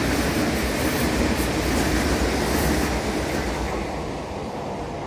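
Meitetsu electric train, the rapid limited express for Toyohashi, running past at speed on the adjacent tracks with a loud rumble of wheels on rails. The noise eases off about three and a half seconds in as the last car goes by.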